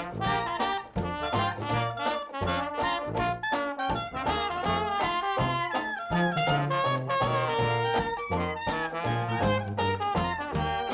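Background music: a lively brass-led tune with trumpet and trombone over a steady rhythmic beat.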